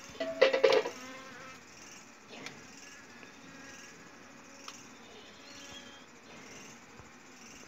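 Honeybees humming steadily in their disturbed nest as the comb is handled, with a brief louder sound about half a second in.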